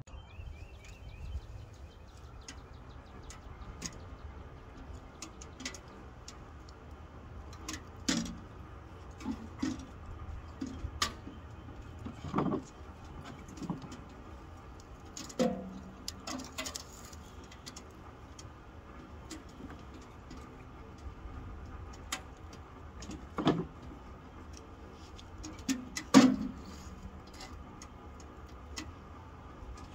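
Knocks and clunks of split firewood and the metal stove door as the firebox of a wood-burning tent stove is loaded, about half a dozen louder ones with the loudest near the end, and small ticks of the fire crackling between them. A bird chirps briefly about a second in.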